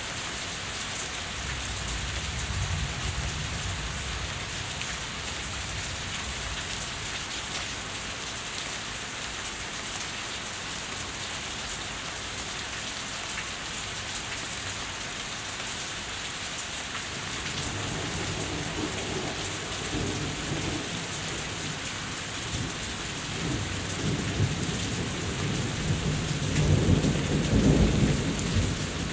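Steady rain falling and running off a house, with thunder: a low rumble in the first few seconds, another about two-thirds of the way through, and a louder roll building near the end.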